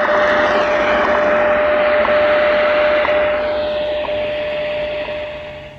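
WWV time-signal broadcast on 15 MHz shortwave, heard through a Tecsun portable receiver's speaker. A steady audio tone with a short tick every second sits over shortwave hiss and fading, and the hiss eases off near the end.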